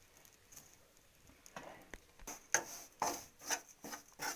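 Metal spoon scraping and stirring raw rice flour around a metal kadai, a run of short scrapes about two a second that starts about a second and a half in. This is the flour being dry-roasted until its moisture is gone.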